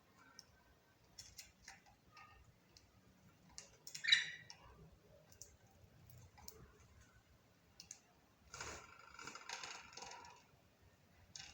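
Budgerigar making soft clicks and chirps, with one sharp chirp about four seconds in and a burst of high warbling chatter past halfway.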